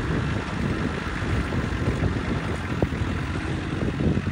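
Truck-mounted forklift's engine running steadily while it carries a pallet of concrete blocks off a flatbed trailer, with a short knock about three seconds in.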